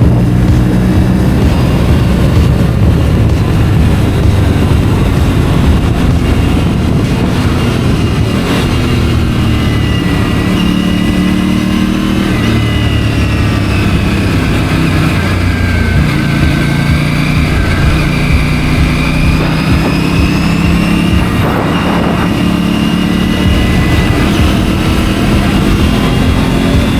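Aprilia RS 457's parallel-twin engine running under way on a ride, its pitch rising and falling gently with the throttle, with wind rush, as heard from a helmet chin-mounted camera mic.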